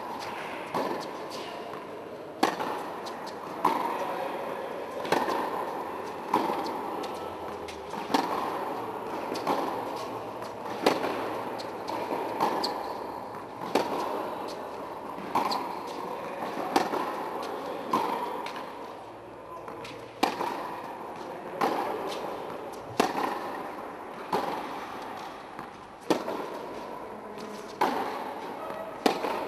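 Tennis balls being struck with rackets in a steady baseline rally on an indoor court: a sharp hit roughly every one and a half seconds, each ringing on briefly in the hall.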